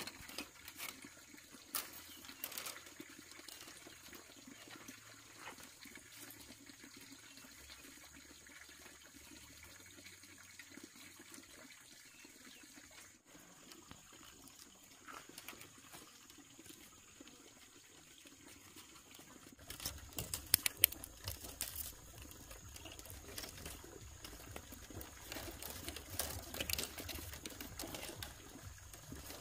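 Water trickling and pouring, faint and steady, with a few sharp knocks and a little more clatter from about twenty seconds in.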